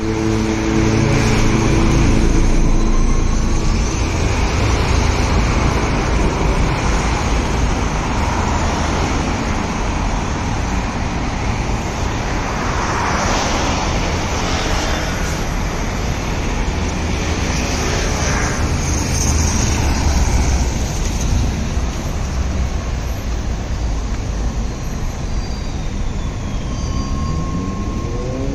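Steady, loud running noise of a moving vehicle, with a short whine rising in pitch near the end.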